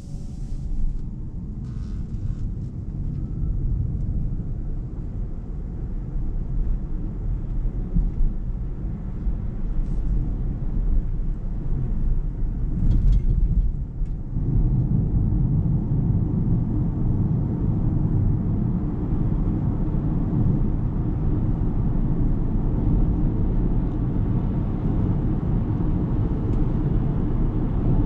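Low, steady road and tyre rumble from an Ora Good Cat electric car on the move, with no engine note. The rumble gets louder about halfway through and then holds steady.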